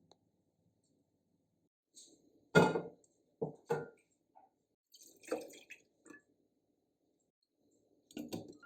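Kitchen utensils and dishes clinking and knocking, a handful of separate short strikes with quiet gaps between, the loudest about two and a half seconds in.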